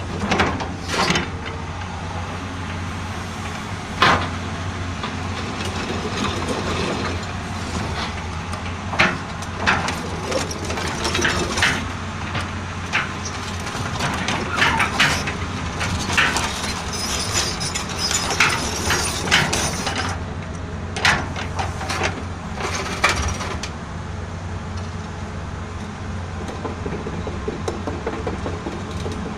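Caterpillar excavator running at a steady low hum while being worked, with irregular sharp knocks and clanks from its moving parts, thickest through the middle.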